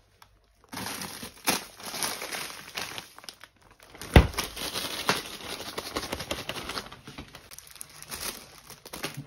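Plastic produce bags crinkling and rustling as vegetables are handled, with a single heavy thud about four seconds in as the fridge door shuts.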